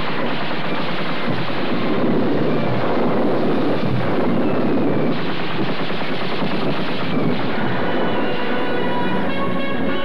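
Rapid bursts of machine-gun fire over speedboat engines in a film soundtrack, heard from a worn VHS transfer. Music comes back in near the end.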